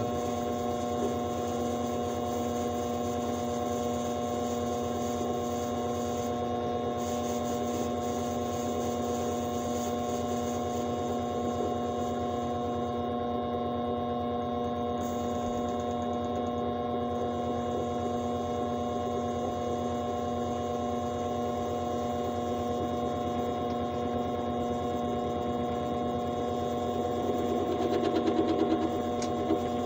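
Vevor mini metal lathe running steadily, its motor and gear train giving a constant hum with a higher whine, as it turns down a tiny nitro engine cylinder sleeve. Near the end the sound grows louder and rougher for a second or two.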